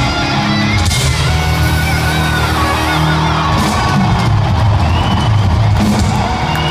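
Heavy metal band playing live in an arena hall: distorted guitars with sliding high notes over sustained low chords and cymbals, with whoops and yells from the crowd.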